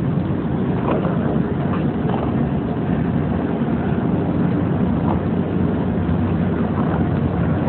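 Electric paintball hopper's agitator motor running steadily, a loud continuous low whirring drone with faint clicks.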